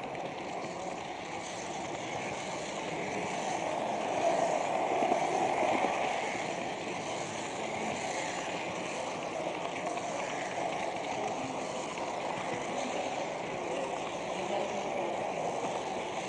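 Steady running rumble of an H0 model train travelling along the track, picked up by a camera riding on the train. It is somewhat louder for a couple of seconds about four seconds in.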